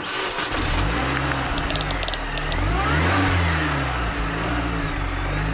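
Car engine revving, pitch rising and falling about halfway through, then running steadily: a sound effect under an intro.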